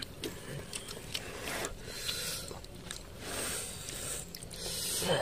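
Faint rustling and small clicks of hands tearing apart a roasted fish on a banana leaf laid over crinkly aluminium foil.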